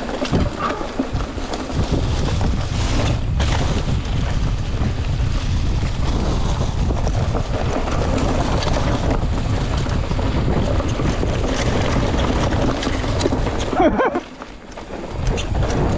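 Wind buffeting the microphone during an off-road ride: a loud steady rumble with scattered rattles and clicks. The rumble drops away for a moment about fourteen seconds in.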